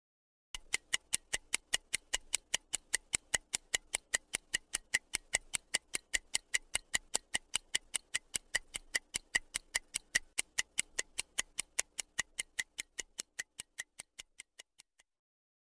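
Stopwatch ticking sound effect timing a countdown: fast, even ticks, about four a second, starting about half a second in and fading out near the end.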